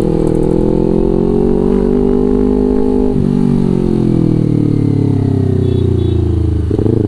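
Kawasaki Ninja 250 FI parallel-twin engine running under way through a Villan New ZX1 aftermarket exhaust. The note climbs slightly, breaks about three seconds in, then falls steadily as the bike slows, with another short break near the end.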